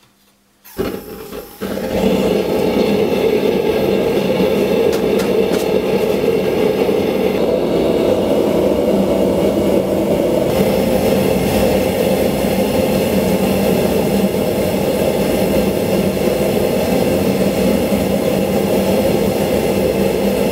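Propane forge burner catching alight about a second in, with an uneven start for half a second, then burning steadily and loudly as a continuous gas-flame rush.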